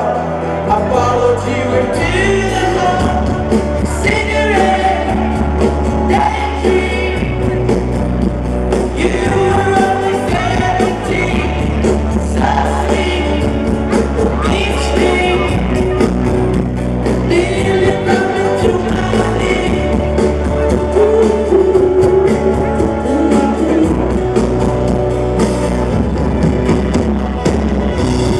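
Rock band playing live, a male lead singer singing over guitar and drums.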